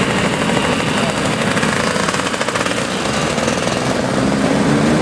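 A column of Vespa scooters riding past, many small single-cylinder engines running together in a steady, rapid rattling buzz.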